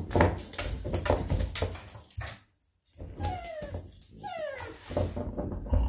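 French bulldog working at a bone, with irregular clicks and knocks over low snuffling and grunting, then two short falling whines about halfway through.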